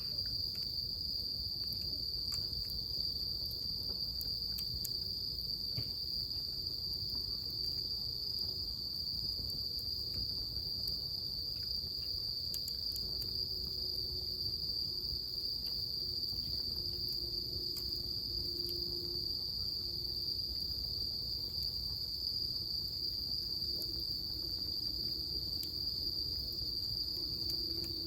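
Crickets trilling in one continuous, unbroken high-pitched drone, with scattered faint crackles from a bonfire.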